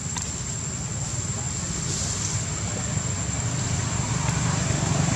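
Motor vehicle running, a low rumble with hiss growing steadily louder as it approaches.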